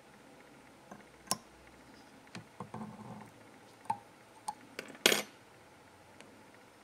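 Small metal clicks and taps from handling a whip-finish tool and fly-tying vise while the thread is finished off at a fly's head: scattered single clicks, with the loudest short rattle about five seconds in.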